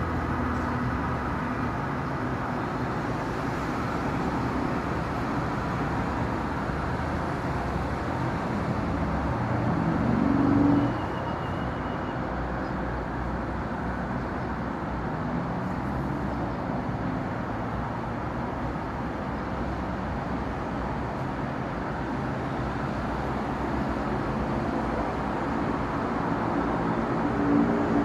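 Steady road traffic noise, a low rumble of passing vehicles. It swells about ten seconds in, then drops off suddenly.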